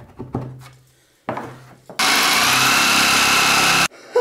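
Electric jigsaw running with its blade against a steel hook, failing to cut through it. A few knocks sound over the motor winding down at first; then the saw starts again about two seconds in, runs loud and steady for about two seconds, and cuts off suddenly.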